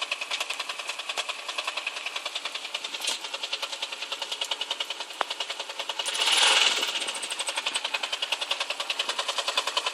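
A 135LC excavator running with a fast, even knocking of about nine knocks a second, of a cause the owner does not know. About six seconds in, a louder hiss swells and fades over about a second.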